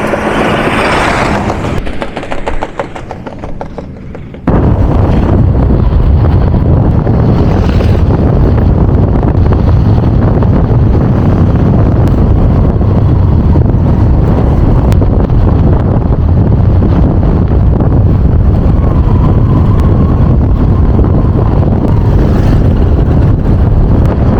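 Loud, steady low rumble of a moving vehicle with wind buffeting the microphone, cutting in suddenly about four and a half seconds in. Quieter, uneven noise comes before it.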